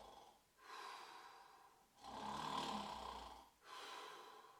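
A man imitating snoring with his voice: three long snoring breaths, the middle one, about two seconds in, the loudest and most rasping.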